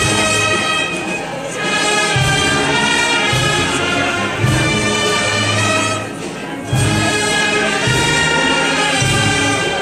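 Brass band playing.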